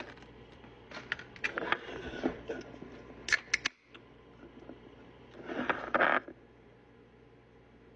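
Nugget ice being scooped into a glass, with light clicks and scrapes of the soft ice pellets, then a few sharp clicks as a Diet Coke can is handled, and a short hiss a little under a second long near the end.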